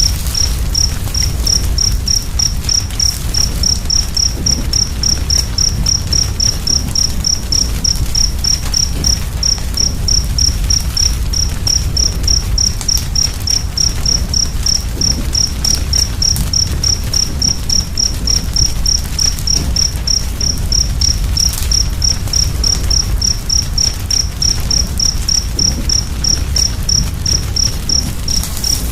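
A cricket chirping steadily and evenly, about three high chirps a second, over a crackling fire with a constant low rumble and faint pops.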